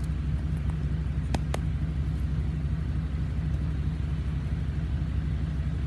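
Steady low background rumble and hum, with two faint clicks about a second and a half in.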